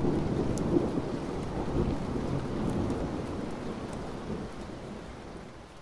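Rolling thunder over steady rain, swelling up at the start and slowly fading away.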